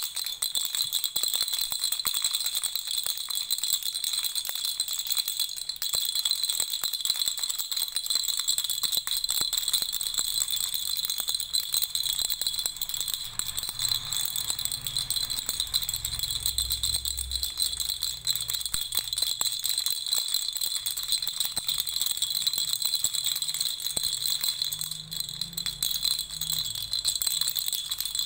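A baby's rattle shaken continuously: a dense, unbroken stream of small rattling clicks with a steady high ringing over it.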